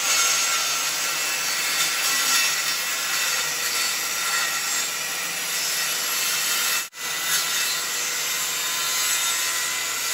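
Guild 1400 W 185 mm circular saw ripping a strip off the edge of hardwood plywood: a loud, steady sawing noise that cuts out for a moment about seven seconds in.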